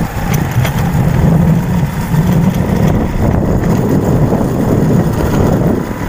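Motorcycle engine running steadily while being ridden, a continuous low hum mixed with road noise.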